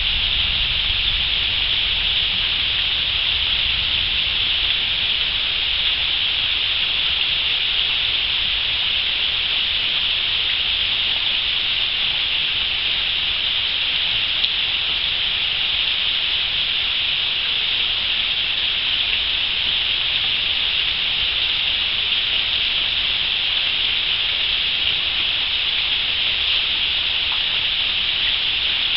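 Heavy rain pouring steadily onto swamp water and foliage, an even unbroken hiss. A low rumble underneath fades away over the first few seconds.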